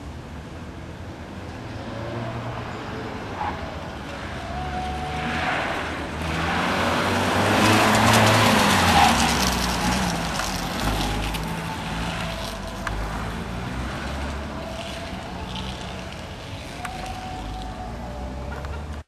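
Peugeot 206 car engine revving up and down as it accelerates and brakes through slalom cones. It is loudest when the car passes close, about eight seconds in.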